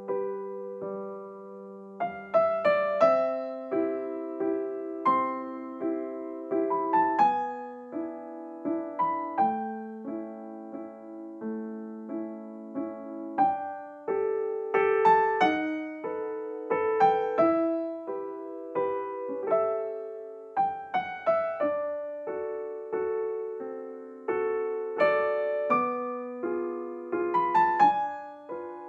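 Background music: a solo piano melody of struck notes and chords.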